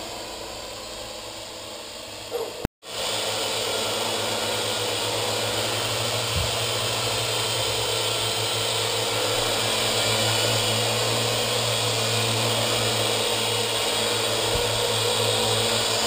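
Parrot AR.Drone quadcopter flying, its four electric rotors giving a steady buzzing whine. The sound drops out for a split second about three seconds in, then comes back a little louder with a steady low hum under it.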